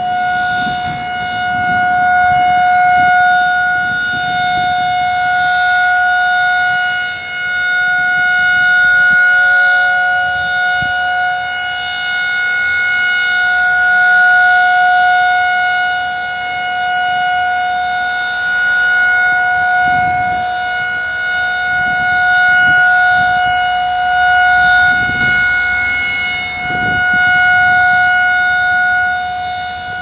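Federal Signal 2001-SRN electromechanical outdoor warning siren sounding one loud, steady tone with its overtones, its level only swelling and dipping gently every few seconds. The horn stays fixed in one direction instead of sweeping round, because its rotator is broken.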